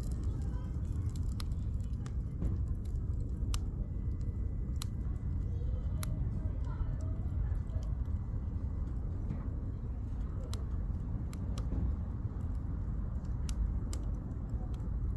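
Wood campfire crackling, its burning firewood giving sharp irregular pops and snaps over a steady low rumble.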